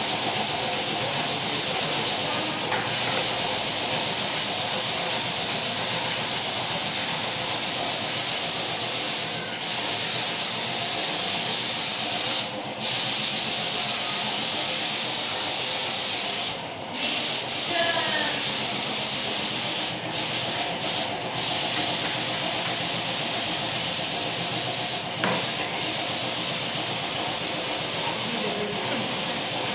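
Compressed-air paint spray gun hissing steadily as it sprays paint onto a wall, the spray cutting out for a moment about ten times as the trigger is released and pulled again.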